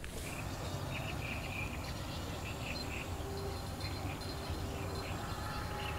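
Quiet outdoor ambience: a steady low rumble with scattered short, high chirps throughout.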